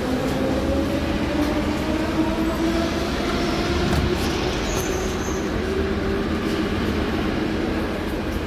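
Metro train traction motors whining as a train pulls away, the pitch rising steadily for about three seconds and then fading. Under it runs a steady low rumble.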